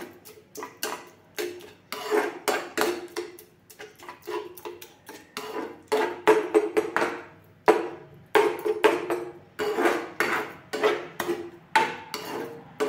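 Metal spatula scraping and knocking against a frying pan as thick tomato chutney is stirred, in quick clusters of strokes with a faint ring from the pan and a couple of short lulls.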